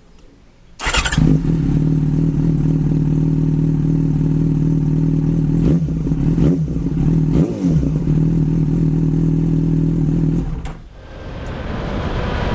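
Yamaha FZ6S Fazer's inline-four engine starting up about a second in and then idling steadily through an Akrapovic titanium slip-on silencer. The idle cuts off about ten and a half seconds in, and a rising rushing noise follows.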